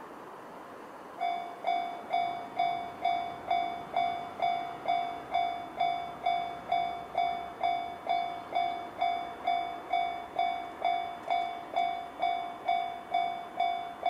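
Japanese railway level crossing alarm sounding the JR standard electronic bell tone, a ringing ding repeated about twice a second. It starts about a second in, as the crossing is activated for an approaching train.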